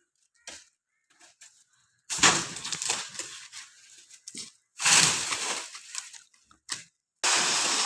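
Two loud crashes about two and a half seconds apart, each trailing off over a second or so: heavy pieces of a coconut tree being cut and falling. A steady hiss starts suddenly near the end.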